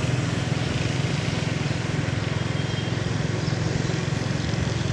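Steady running hum of a small vehicle engine while riding along a road, with wind and road noise over it.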